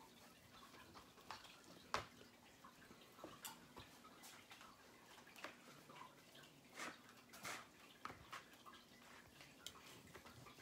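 Faint, scattered clicks and taps of kitchen utensils against food containers while cooked chicken is portioned out, the sharpest about two seconds in.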